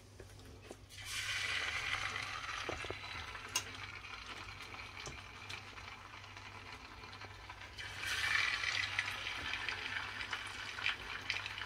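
Masala-coated small fish sizzling in hot oil in a frying pan as they are dropped in. The sizzle flares up about a second in, eases off, and flares up again about eight seconds in, with a few sharp pops of spattering oil.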